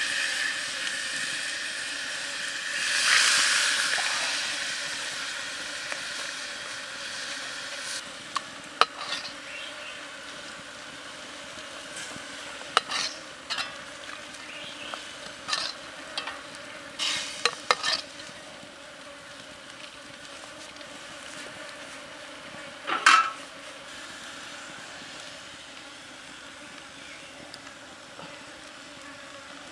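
Liquid sizzling in a steel wok over a wood fire, loud at first with a second swell about three seconds in, then settling to a low steady hiss. Sharp clinks and knocks of a metal ladle against the wok come scattered through the middle, the loudest a little past twenty seconds in.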